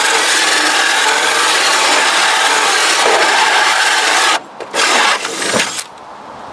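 A saw blade cutting a vent hole through a wooden panel wall, a steady, loud cutting noise that stops about four seconds in, followed by a couple of short knocks.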